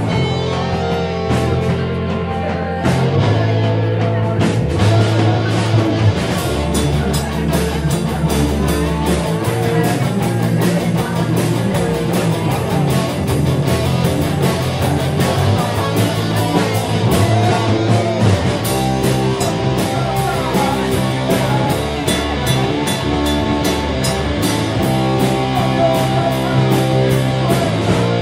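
Rock band playing live: electric guitars and a drum kit, with a singer's voice over them.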